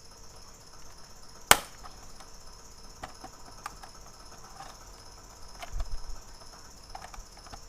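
Plastic clicks and ticks as the case of an Acer Veriton mini PC is pried off its clips, with one loud sharp snap about a second and a half in and a low bump from handling near six seconds.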